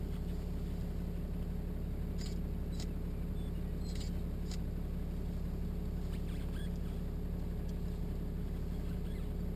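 Pickup truck engine idling, a steady low hum heard inside the cab. A few faint short high clicks come about two to four and a half seconds in.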